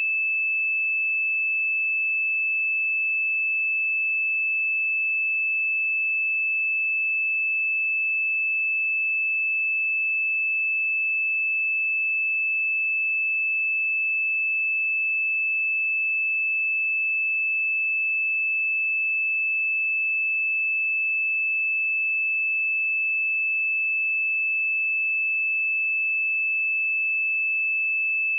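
A pure 2624 Hz sine-wave test tone, a single steady high-pitched note held at constant loudness.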